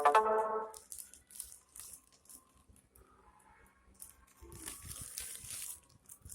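Plastic crinkling and rustling in short bursts, with a longer stretch of rustling past the middle, as squishy toys are handled. A brief, loud pitched sound comes at the very start.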